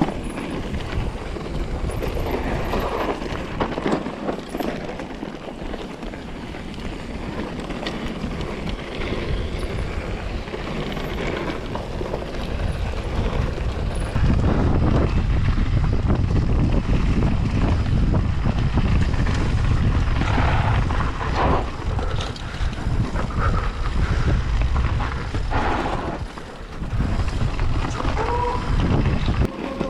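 Low rumbling wind noise on the microphone that gets louder about halfway through.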